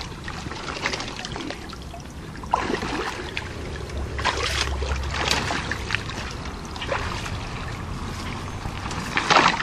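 Water splashing and sloshing irregularly as a person wades through a muddy river, with the loudest splash near the end.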